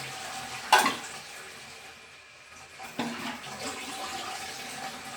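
Water running into a toilet cistern as it refills, a steady hiss with a faint steady tone from the fill valve. A loud sharp knock about 0.7 s in and a smaller one about 3 s in, hard parts of the tank knocking.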